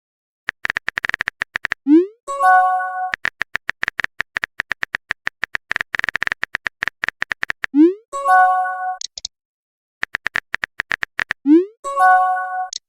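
Phone texting sound effects, three times over: a quick run of keyboard tap clicks, a short rising whoosh, then a bright multi-note message chime.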